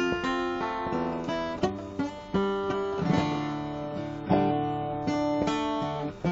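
Solo acoustic guitar playing an instrumental passage of plucked notes and chords, each note ringing on after its attack.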